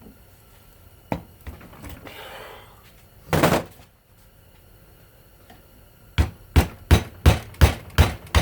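Hammer strikes on metal while cutting the copper windings of a ceiling fan motor: a short clattering burst a little past three seconds, then a quick run of about eight sharp blows, roughly three a second, near the end.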